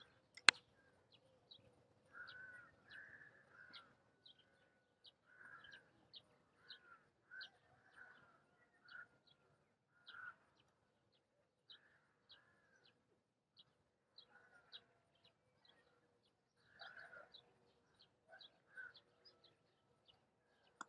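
Faint birdsong: short high chirps repeating many times, with lower calls every second or so. One sharp click sounds about half a second in.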